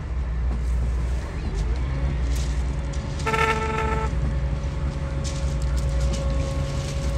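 Heavy diesel engine of a lifeboat launch and recovery vehicle running steadily, with a steady whine joining about two seconds in. One short horn toot, under a second long, sounds about three seconds in.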